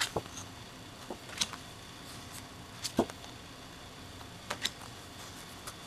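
Stiff printed cards being flipped through and shuffled by hand: scattered light taps and flicks of card on card, irregular, with the loudest about three seconds in.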